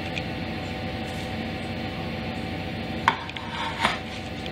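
Serving tongs and a dinner plate knocking as salad is served onto the plate and the plate is set down: two sharp clinks about three seconds in, over a steady background hum.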